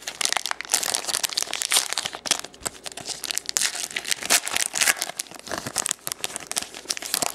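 Crinkly plastic wrapping of a trading-card blaster box and its packs being torn open and crumpled, a dense run of crackles throughout.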